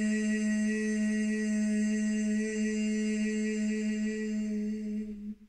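A woman's voice holding one long, steady chanted note, unchanging in pitch, that stops shortly before the end.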